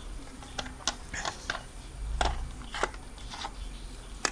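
Handling noises from a small air compressor's rubber hose and valve connector: a handful of light clicks and taps as it is fitted toward a bicycle tyre valve. The compressor itself is not running.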